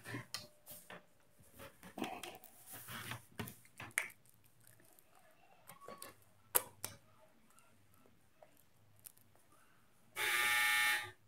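Scattered small clicks and knocks, then near the end a loud, steady buzzing tone lasting about a second.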